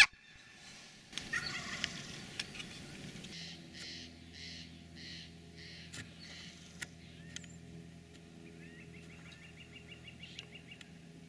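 Wild turkey gobble about a second in, followed by softer bird calls and a quick twittering run near the end.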